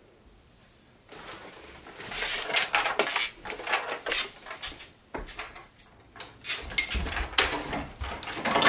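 Plastic rattling and clattering from about a second in, as a Nerf Vulcan chain-fed toy blaster with its dangling dart belt is carried along, mixed with footsteps; a door is opened near the end.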